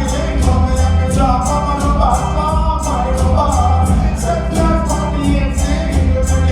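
Latin music with singing over a steady beat and heavy bass, played loud.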